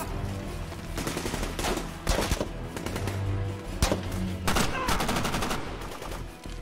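Movie gunfire: a string of separate rifle shots at uneven intervals, roughly one or two a second, over a low sustained music score.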